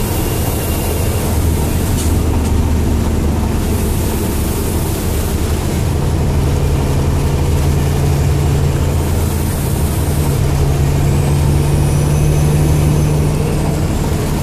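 Truck engine running steadily while driving at speed, heard from inside the cab, with rain and road noise. A second, higher hum joins about six seconds in.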